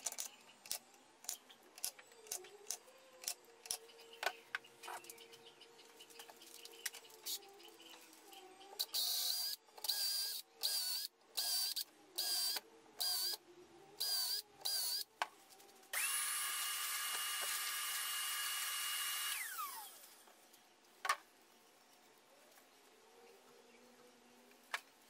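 An automatic centre punch snaps down about a dozen times with sharp clicks, marking screw holes in a wooden speaker cabinet. Then a cordless drill bores the holes in about ten short whining bursts, followed by one longer steady run that winds down.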